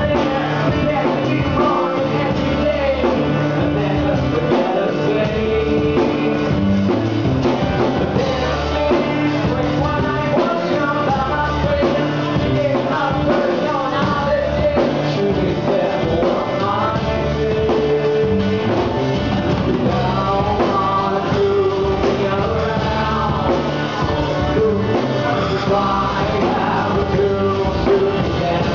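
A rock band playing live in an acoustic set: a male singer sings over acoustic guitar and the band.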